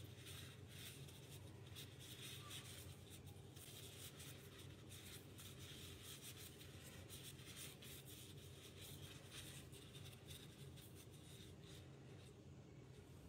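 Faint papery rustling and rubbing as plastic-gloved hands fold thin samosa pastry sheets around a meat filling, with many small irregular scratches, over a low steady hum.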